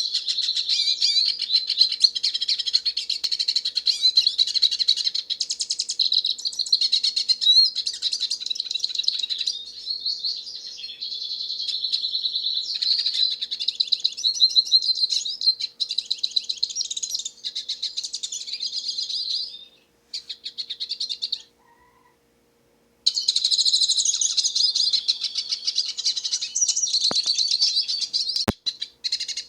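Hooded siskin (pintassilgo) singing a long, rapid, varied twittering song. The song breaks off for a few seconds about twenty seconds in, then resumes.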